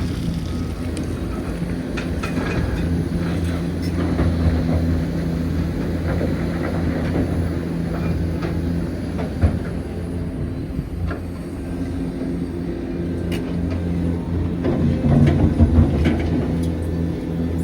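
Hitachi Zaxis 490LCH excavator's diesel engine running steadily while it works, with scattered knocks and clanks from the machine. There is one sharp knock about halfway through and a cluster of louder knocks near the end.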